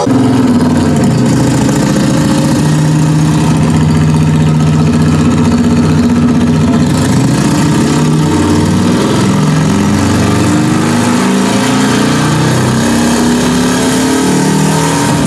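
Loud live electronic music: a low, buzzing synthesizer drone of held bass notes that step from one pitch to another, without a clear drum beat.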